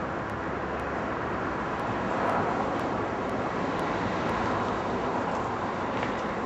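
Steady rush of road traffic, swelling slightly about two seconds in.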